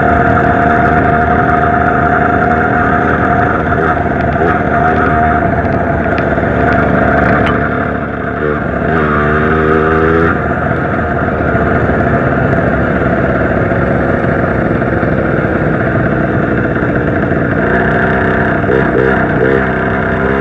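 Zanella 70cc two-stroke moped engine running under way. Its note shifts up and down about halfway through and again near the end.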